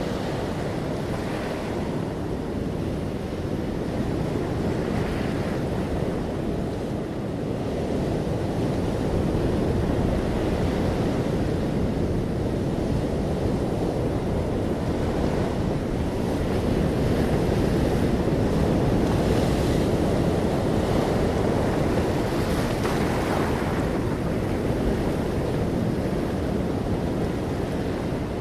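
Ocean waves breaking and washing on a beach, a continuous surf with gentle swells in loudness every few seconds.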